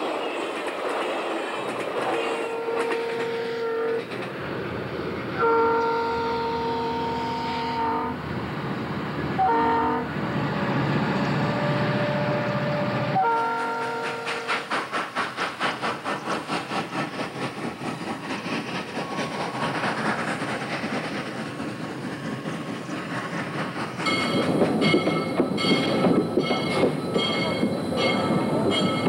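Model train running with several multi-tone horn blasts in the first half. These are followed by a steam-locomotive chuff at about four beats a second, and near the end a locomotive bell ringing about twice a second.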